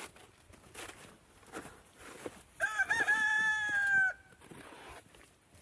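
A rooster crowing once, about halfway through: a brief rising opening and then a long held note that sags slightly before it stops.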